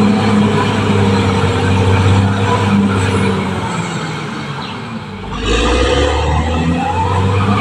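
Caterpillar D6R XL bulldozer's diesel engine running steadily. About five seconds in it eases briefly, then comes back louder with a deeper rumble and a short rising whine.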